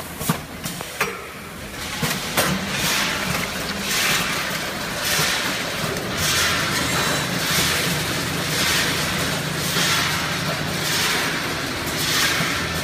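Automatic premade-bag filling and sealing machine running, a steady hum with a hiss that swells and fades about once a second as it cycles. In the first two seconds a few sharp clicks and crinkles of kraft paper bag being handled.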